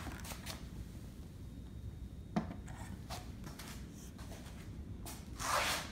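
Faint handling noise from a hand-held phone: soft rustles, a few light clicks, a short knock about two seconds in, and a brief breathy rustle near the end.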